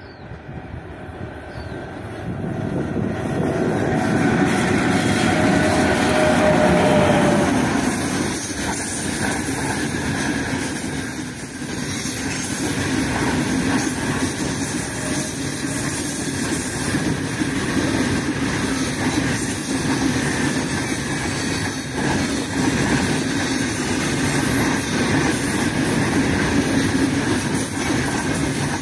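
A freight train hauled by a three-section 3ES5K 'Ermak' electric locomotive approaching, growing louder over the first few seconds as the locomotive passes, then its open freight wagons rolling past with a steady rumble of steel wheels on rail and occasional clacks over the rail joints.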